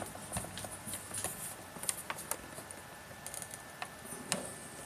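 Scattered light clicks and knocks of a camera and its mount being handled while the camera is lowered, the sharpest about four seconds in.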